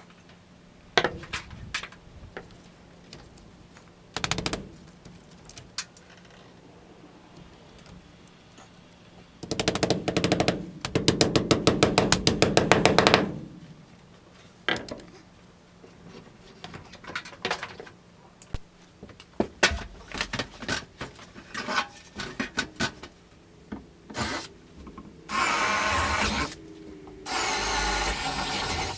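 A power drill running in short bursts: a long burst of rapid even clatter near the middle and two sustained runs near the end, amid scattered knocks of tools and material.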